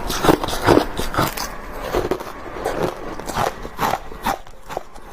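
Crushed ice being bitten and chewed close to the microphone: a rapid run of sharp, crackly crunches that thin out and grow quieter over the second half.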